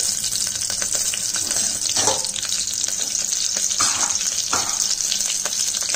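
Slit green chillies sizzling in hot oil in a pressure cooker: a steady, loud hiss with scattered small pops and crackles.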